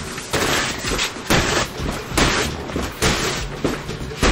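A push broom striking the taut clear plastic wall of an inflated CarCapsule car-storage bubble again and again, each stroke a sudden slap, about two a second.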